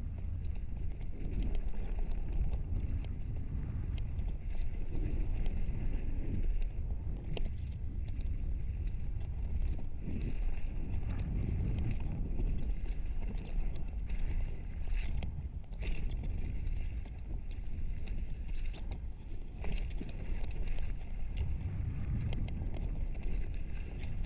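Mountain bike rolling fast down a dirt trail, heard from a camera on the rider's helmet: a steady low rumble of wind and knobbly tyres on the ground, with scattered clicks and rattles from the bike and the Fox Proframe RS full-face helmet, which rattles over the bumps.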